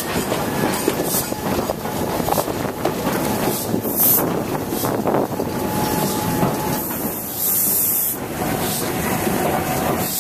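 Carriage of a steam-hauled heritage train running on the rails, heard from on board: a steady rumble with rail clicks, two short bursts of hiss about four and eight seconds in, and a faint thin squeal.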